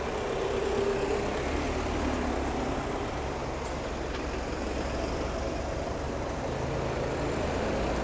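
Steady city street traffic noise with the low hum of an idling engine setting in about a second in.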